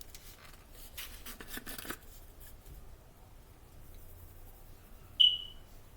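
Onion powder being shaken from a spice shaker over chicken in a pan: a quick run of shakes for about two seconds. Then one short high beep about five seconds in, the loudest sound.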